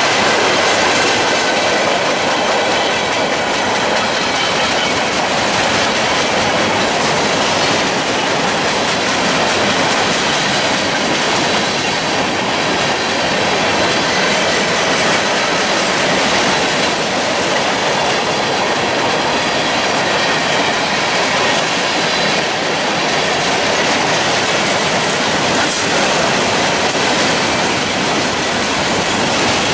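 Freight train of tank cars and covered hoppers rolling past close by, its wheels making a loud, steady noise on the rails.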